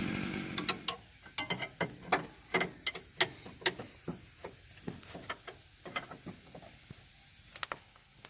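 Chainsaw engine running, then dying away within the first second. It is followed by a long run of irregular sharp snaps and clicks, two or three a second, the loudest a double snap near the end.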